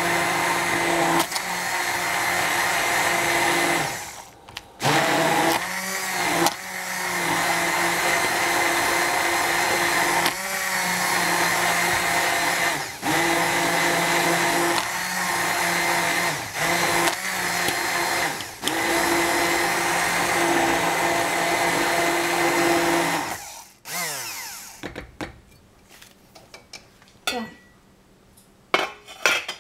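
200-watt immersion blender running in a saucepan of cooked strawberries, puréeing them into a coulis. The motor hum cuts out briefly about four seconds in and dips in pitch several times as it works, then switches off about four-fifths of the way through.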